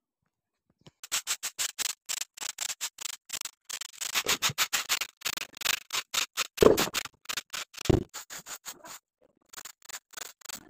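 Short straw hand broom sweeping a dirt and brick floor in quick, brisk strokes, several a second, with two louder thumps partway through.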